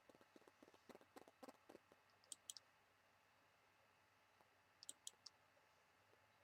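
Near silence with faint scattered clicks: a patter of small ticks in the first two seconds, then a pair of sharp clicks and, about five seconds in, a group of three.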